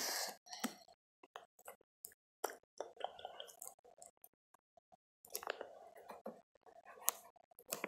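Scattered soft clicks, taps and rubs from a phone being handled right against its microphone.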